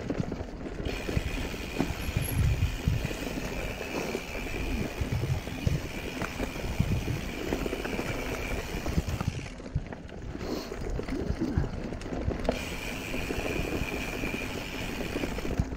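Mountain bike riding down a dirt trail covered in dry leaves: tyres rolling and crunching over leaves and earth, the bike knocking and rattling over bumps. A steady high whir runs along with it, stopping for about a second near the middle and coming back.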